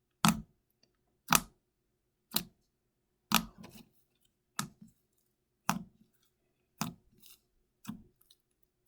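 Butter slime pressed with a finger, popping poppet-style: a short, sharp pop about once a second, eight times.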